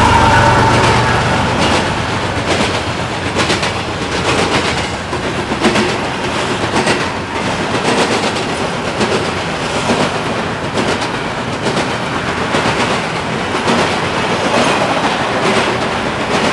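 Empty freight cars rolling past at close range, their wheels clacking over rail joints every half second or so over a steady rumble. The trailing diesel locomotive's sound dies away in the first second or so.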